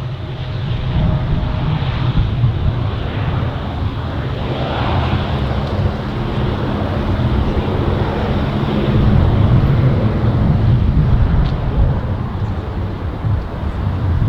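Aircraft engine running, a loud, steady low rumble with a held tone in the middle, and wind on the microphone.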